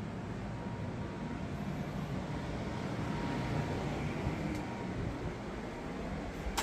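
Steady low rumbling noise that swells slightly toward the middle and eases off again, with no distinct events.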